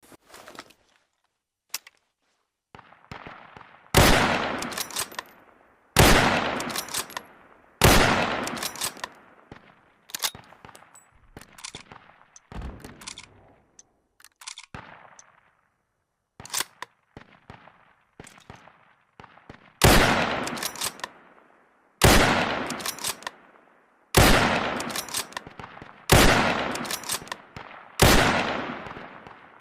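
Mauser 98k bolt-action rifle in 7.92×57mm firing repeatedly. About eight loud shots come two seconds apart, each report echoing away over a second or so, in two runs with quieter reports between them. Short metallic clicks fall between some of the shots.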